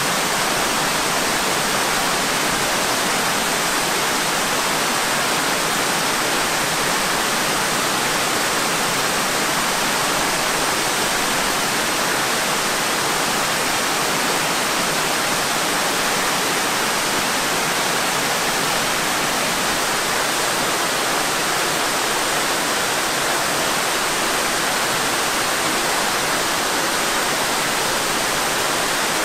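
Waterfall pouring over a rock ledge and cascading down rocky steps: a steady, unbroken rush of falling water.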